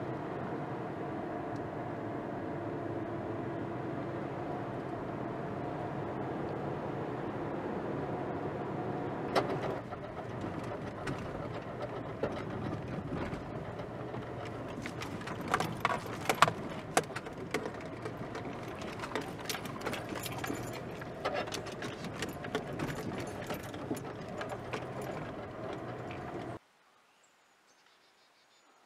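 A car driving, with a steady engine and road drone at first; from about ten seconds in, many sharp clicks and crackles come in as the tyres roll over a dirt track. Near the end it cuts off suddenly to near silence.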